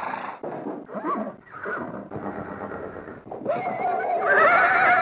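Horse sound-effect recording: several short breathy sounds, then about three and a half seconds in a long whinny with a quavering pitch that grows louder.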